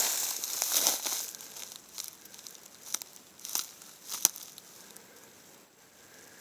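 Dry rustling and crinkling, densest in the first second or so, thinning to a few scattered crackles that die away.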